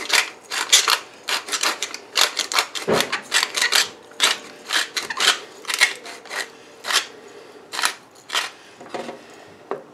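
Hand pepper grinder being twisted over a pot of stew: a long run of short, crunchy grinding strokes, two or three a second.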